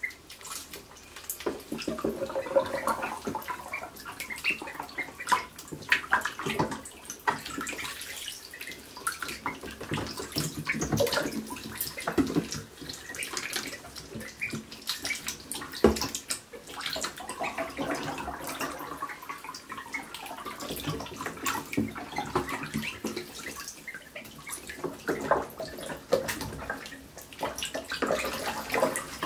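Call ducklings splashing and paddling in a shallow plastic tub of water: an irregular, continuous run of small splashes and water sloshing.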